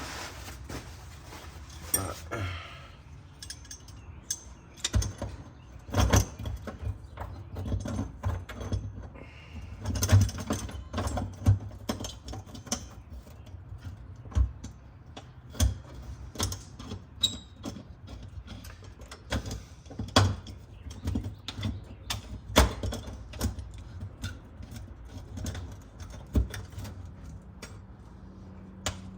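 Hand tools clinking, clicking and knocking against metal car parts at an uneven pace while a fitting that keeps spinning is worked on with pliers.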